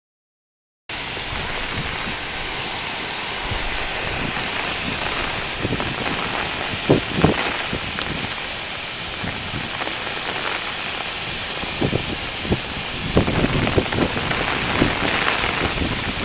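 Heavy typhoon rain and wind pouring down steadily, starting about a second in, with scattered knocks of drops or splashes hitting a surface.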